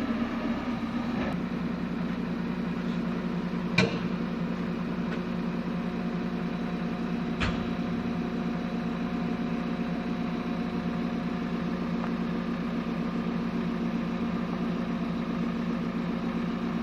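Backhoe's diesel engine running steadily, with two sharp knocks, one about four seconds in and another past seven seconds.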